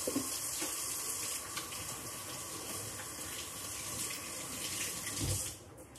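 Grilled cheese sandwich sizzling in a frying pan on the stove: a steady hiss with faint crackles that dies away near the end.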